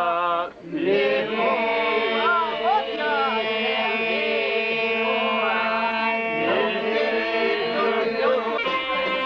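Men singing a folk song: a wavering, ornamented lead melody over a steady held drone. Near the end it changes to different folk music.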